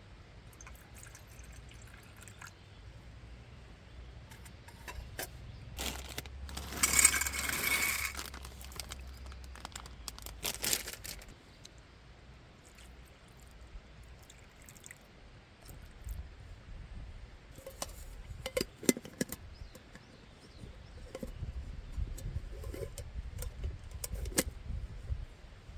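Objects being handled, with scattered clinks and knocks. About six seconds in there is a louder noisy burst lasting a couple of seconds.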